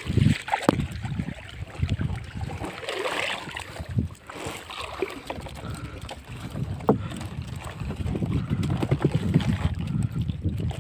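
Wind buffeting the microphone, with a few knocks and rustles as a mesh bag net and a hand scoop net full of shrimp and small fish are handled on a wooden boat.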